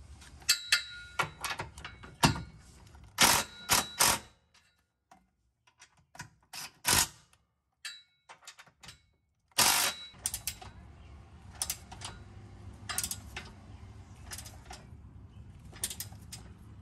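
A hand ratchet and socket clicking on the rear differential brace bolts, with metal tool clinks, as the bolts are tightened a little at a time. The clicks come in short clusters in the first few seconds and again about ten seconds in, with lighter scattered clicks near the end.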